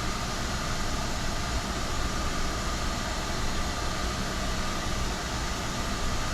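Steady machine whir with a faint high-pitched hum, unbroken and even in level throughout.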